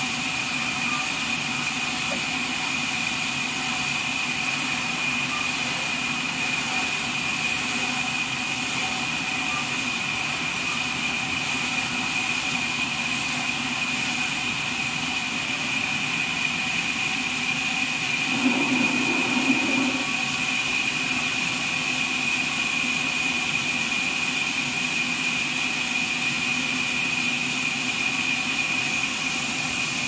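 Horizontal band sawmill running: a steady mechanical drone with a constant high whine, and a brief louder surge a little past the middle.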